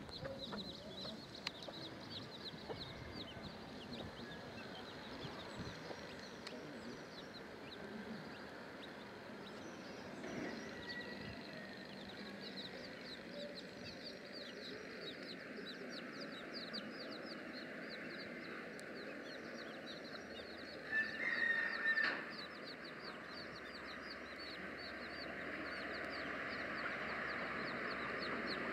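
A brood of young chicks peeping rapidly and without pause, with a brief louder call from the mother hen about two-thirds of the way through.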